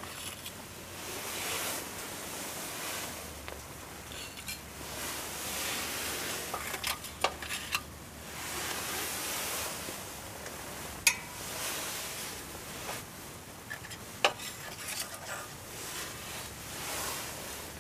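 Metal tongs raking and scraping through burning charcoal and ash in a mini shichirin charcoal grill, with a few sharp clinks of the tongs against the grill or coals, about three, spread through the stretch.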